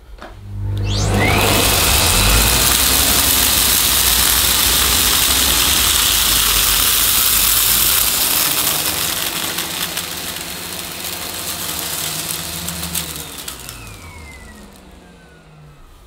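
Miele Complete C3 Cat & Dog canister vacuum cleaner with its TurboTech turbo brush, run forward and back over a carpet. The motor whines up to speed in about a second and runs loud and steady. In the last few seconds the whine falls away as it runs down.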